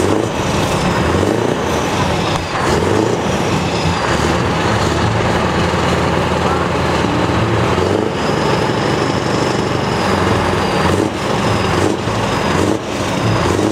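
Scania V8 diesel truck engines idling steadily, a low, even rumble.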